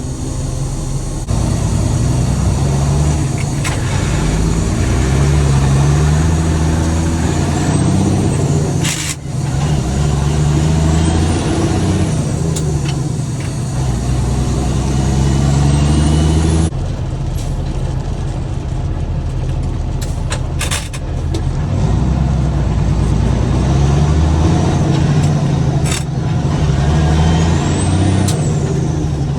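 Peterbilt truck's diesel engine pulling under load, revving up and dropping back repeatedly as it is shifted through the gears of its 8-speed transmission.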